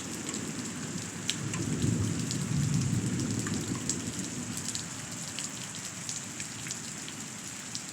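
Steady rain falling, with scattered drop ticks close by. A low rumble of thunder swells about two seconds in and dies away by about five seconds.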